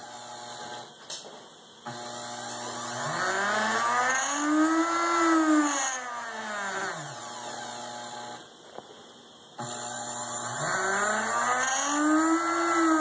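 A drill's 120 V AC motor, driven by a reed-relay resistor-ladder speed controller, speeds up and slows down twice with a short pause in between, its whine rising and falling in pitch. The sweep is not smooth because some of the reed relays fail.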